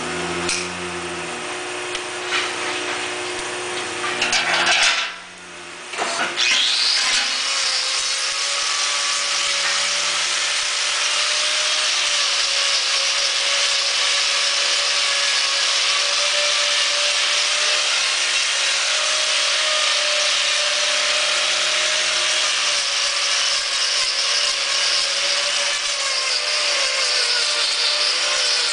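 Steady mechanical whine of a small electric motor, with a sustained tone over a hissing noise. It drops away briefly about five seconds in, then runs on without change.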